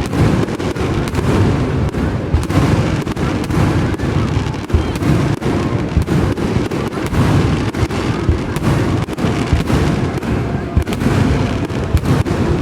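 Aerial fireworks going off in a continuous barrage: many sharp bangs and pops one after another over a steady low rumble, with no pause.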